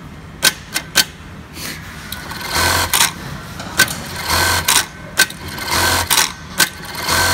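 Electronic bartacking sewing machine running its tack cycles: four short bursts of fast stitching, each about half a second long and coming about every second and a half. Sharp single clicks fall between the bursts, with two clicks in the first second.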